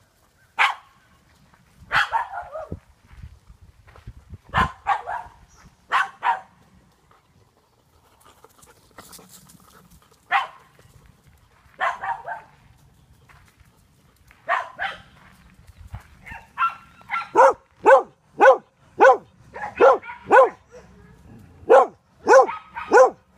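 A dog barking: scattered single barks at first, then a quick, loud run of barks at about two a second through the last third.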